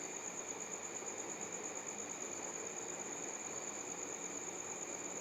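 Steady high-pitched insect trill that goes on without a break.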